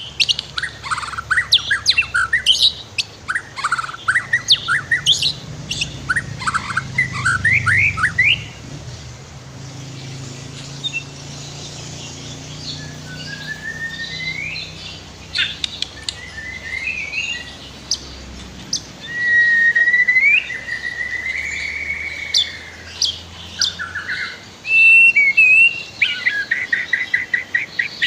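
White-rumped shama singing: quick strings of varied whistled notes, then sparser phrases and a long sliding whistle past the middle, ending in a fast run of repeated notes. A river flows steadily underneath.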